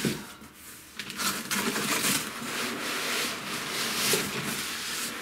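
White foam packing end caps scraping and rubbing against the inside of a cardboard shipping box as an oscilloscope is slid up and out of it: a continuous rustling scrape that starts about a second in, after a short knock at the start.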